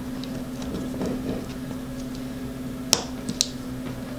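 Small sharp clicks and ticks from handling a VTX circuit board as it is pressed down onto a drone's flight-controller stack, the two loudest about three seconds in, half a second apart, over a steady low hum.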